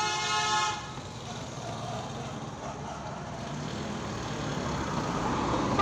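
Road vehicle noise, a motor and tyres, swelling steadily louder toward the end. It follows a brief steady pitched tone in the first second.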